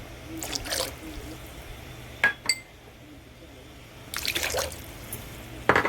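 Sauce poured into a pot of water in a few short pours. Two sharp, ringing glass clinks come a little after two seconds in.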